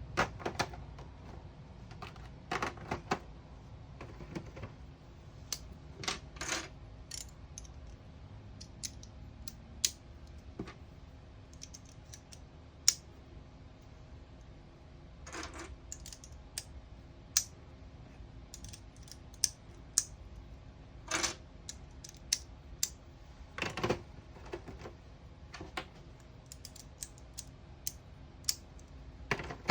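Irregular sharp taps near a Snap Circuits sound-activated circuit, some answered by short machine-gun-like bursts of sound from the kit's speaker.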